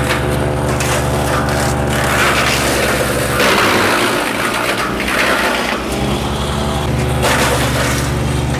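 MechMaxx P4206 wood chipper running steadily while branches are fed through it, the chipping noise coming in surges over the machine's steady drone. The heaviest surge comes about halfway through, when the low engine note weakens under the load.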